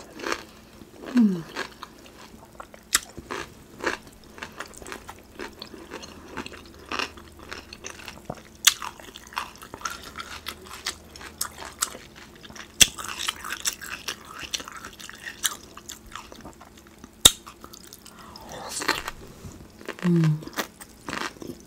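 Close-miked mukbang eating: wet chewing, lip smacks and small crunches of sauce-coated food, with many sharp clicks throughout. A short falling hum about a second in and another near the end.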